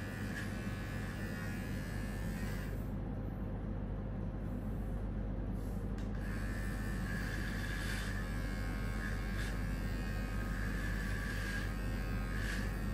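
Electric hair clippers running with a steady buzz. The higher part of the sound drops away for about three seconds a few seconds in, then returns.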